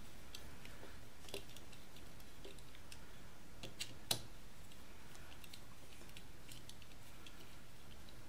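Scattered small metal clicks as an Allen key works the screws of a rifle scope's rings, the sharpest about four seconds in.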